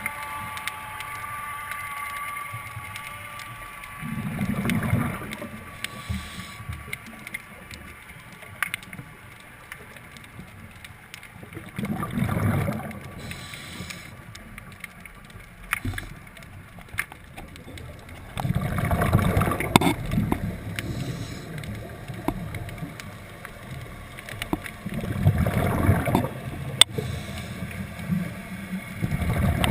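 Underwater breathing through a scuba regulator: four bubbling exhalations come roughly every six to seven seconds, with quieter gaps for the inhalations between them. Sharp clicks are scattered throughout, and a faint steady whine fades out in the first few seconds.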